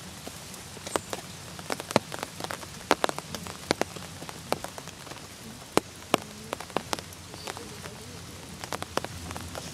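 Rain falling steadily, with many irregular sharp taps of single drops striking close by.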